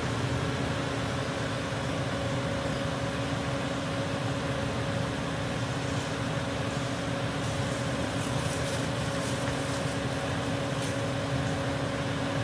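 A fan motor running steadily: an even whir with a constant low hum. Light crinkling comes in about halfway through.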